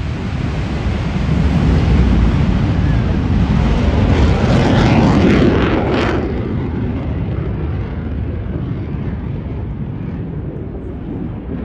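Blue Angels F/A-18 Super Hornet jets flying past: a jet roar that builds, peaks about five seconds in, then drops off sharply and leaves a fading low rumble.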